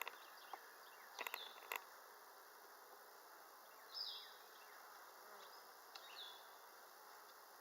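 Honeybees buzzing at an open hive, a faint steady hum, with a few sharp clicks about a second in.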